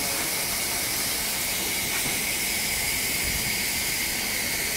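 Steam locomotive standing at a platform with a steady hiss of escaping steam.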